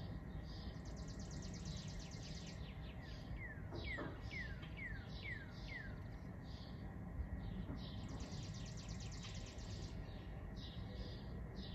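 Outdoor ambience of several songbirds calling over a steady low rumble: a rapid trill about a second in and again about eight seconds in, a run of about six falling whistled notes in the middle, and scattered short chirps throughout.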